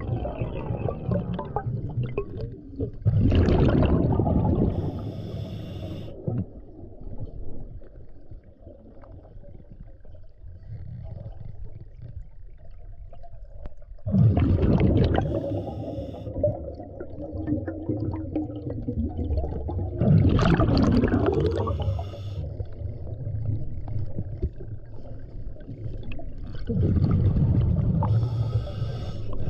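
Scuba diver's regulator breathing underwater: four loud rushing surges of exhaled bubbles, each followed by a short high hiss, over a low rumble.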